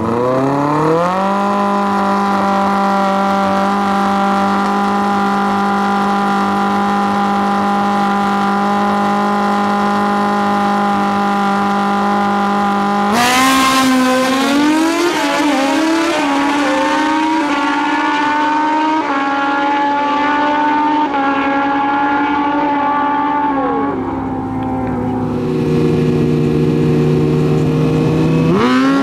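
Drag-racing motorcycle engines held at a steady high rev on the starting line. About 13 seconds in the bikes launch and accelerate hard down the strip, the pitch climbing and dropping back at each gear shift. Near the end another bike's engine is held at a steady rev on the line, then rises.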